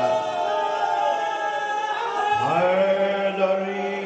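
Male voices in a drawn-out devotional chant, holding long sung notes. A new, lower held note starts about halfway through.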